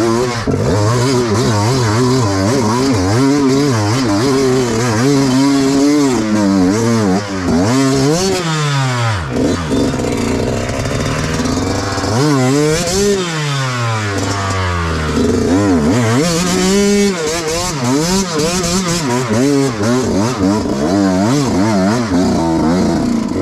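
Dirt bike engine being ridden on and off the throttle, its pitch rising and falling continually, with several sharp drops and climbs as the revs are cut and opened again.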